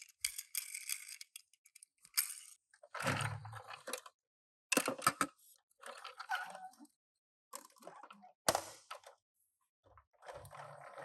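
Hands handling toy packaging and small toy cars: short bursts of crinkling, crunching and clicking, about half a dozen of them with brief silent gaps between.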